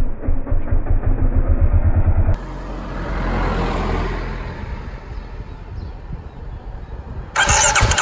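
Big-bore Kawasaki KLX250's single-cylinder engine running at low revs, a rapid even pulsing, for about two seconds. Then the sound cuts to a softer noise that swells and fades, and a loud rush of noise starts suddenly near the end.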